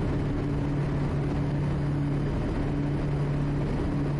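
Quest Kodiak's PT6A turboprop engine and propeller at takeoff power just after liftoff, in the initial climb. It is a steady drone with a low hum that swells and fades in a slow beat.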